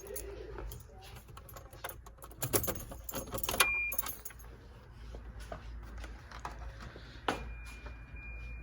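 A bunch of keys jangling amid clicks and knocks of handling, over a low hum. About seven seconds in, a thin, high, steady electronic tone starts and keeps sounding.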